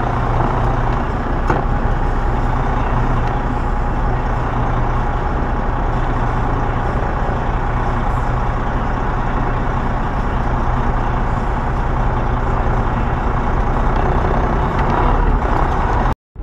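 Semi-truck diesel engine running steadily with a constant low drone. The sound cuts off abruptly near the end.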